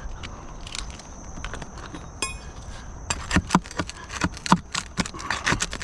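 Roofing hand tools knocking and clinking against nails and shingles while cutting out the old pipe boot flashing: a short rattle of clicks about two seconds in, then sharp irregular knocks, several a second, through the second half.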